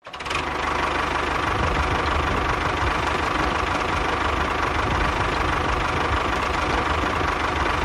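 Engine running steadily, with a low rumble and a constant whine, fading in at the start.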